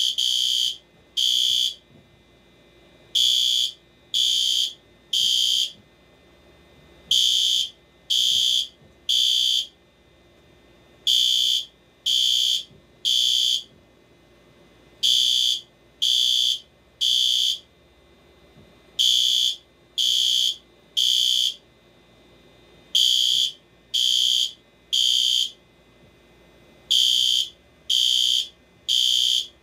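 Fire alarm sounding a loud, high-pitched beep in the temporal-three pattern: three half-second beeps, then a pause, repeating about every four seconds. This is the standard evacuation signal.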